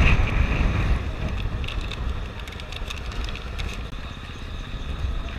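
A 2003 Gas Gas EC 250 two-stroke dirt bike engine running at a low, steady idle. Light clicks and rattles are heard over it from about one and a half to four seconds in.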